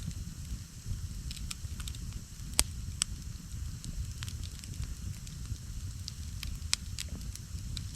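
Campfire crackling: scattered sharp pops and snaps, the loudest about two and a half seconds in and again near seven seconds, over a steady low rumble.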